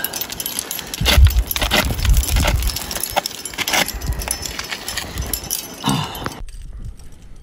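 A climber's trad rack of cams and carabiners clinking and jangling as he climbs the rock, with scuffs and low thumps on the microphone. The sound stops abruptly near the end.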